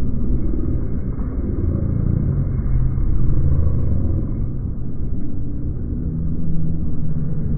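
A steady low rumble with no distinct events in it.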